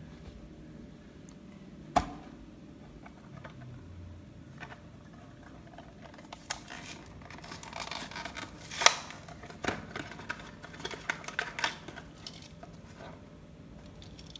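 A Hot Wheels blister pack being torn open by hand: the plastic blister and card backing crackle and snap in a run of sharp clicks. There is one sharp snap about two seconds in, and the loudest crackling comes about nine seconds in.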